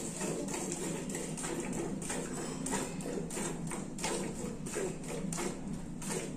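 Hand milking: rhythmic squirts of milk from the cow's teats into a steel bucket, about two to three hissing strikes a second as the hands alternate.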